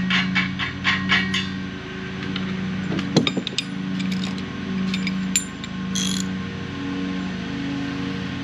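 Hand ratchet wrench clicking rapidly, about four to five clicks a second, as a bolt is run in; the clicking stops a little over a second in. A metallic clank follows around three seconds in, then a few scattered clicks.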